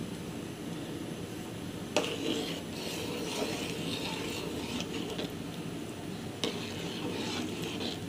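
A steel spoon stirring in an aluminium pot of milk, scraping round the pot, with a sharp clink against the metal about two seconds in and another past six seconds.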